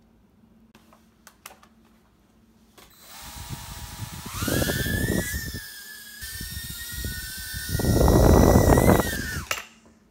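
Tiny whoop micro quadcopter's brushed motors spinning up to a high whine, holding a steady pitch, with two louder, rougher stretches, then cutting out near the end.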